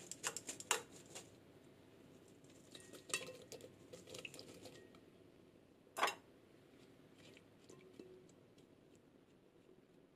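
Diced sweet potato tumbling from a glass bowl into a rice cooker's inner pot of rice and water, a few small clattering bursts, then one louder knock about six seconds in.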